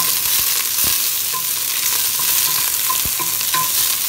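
Sliced onions and aromatics sizzling in hot oil in a stainless steel pot as they are sautéed, stirred with a wooden spoon that gives a few soft knocks against the pot.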